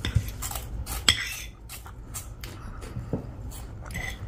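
Metal spoon clinking and scraping against a plate of chatpate, in a scatter of light clicks.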